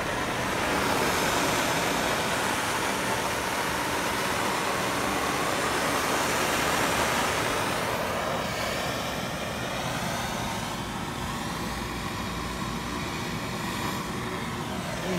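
Steady roar of a handheld gas torch burning as it heats a copper soldering iron, a little louder in the first half.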